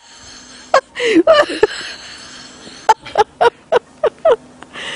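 A person laughing: a short burst about a second in, then a run of about seven quick "ha"s in the middle.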